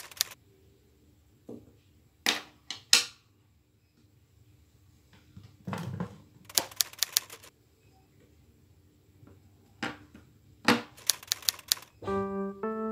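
Typewriter key clicks, some single and some in quick runs of about five or six, as text types out on screen. A plucked-string melody starts near the end.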